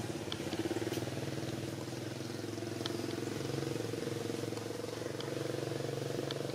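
An engine running steadily at an even pitch, with a few short, faint high ticks.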